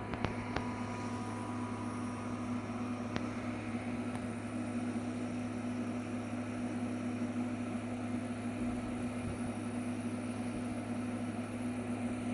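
DIY gantry CNC machine running while milling a PCB: a steady motor hum, with a few sharp clicks in the first seconds and one more about three seconds in.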